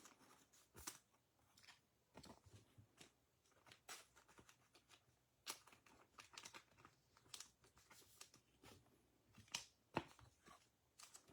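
Faint, irregular rustling and clicking of trading cards and plastic packaging being handled and sorted, with a slightly sharper click about a second in and another near the end.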